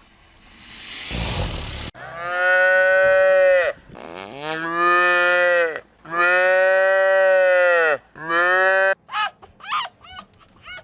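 Cow mooing: three long calls of about two seconds each and a short fourth one, after a breathy rush of air about a second in. Near the end comes a quick run of short, high chirping calls, about four a second.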